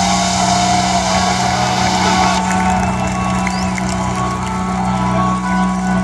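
Basketball-arena pre-game introduction sound: music over the PA with a steady low droning tone, under crowd noise. A loud rushing hiss stops abruptly about two and a half seconds in.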